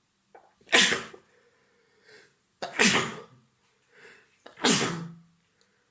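A man with a bad cold sneezing three times in a row, about two seconds apart. Each sneeze has a quick catch of breath just before it, with faint breaths between.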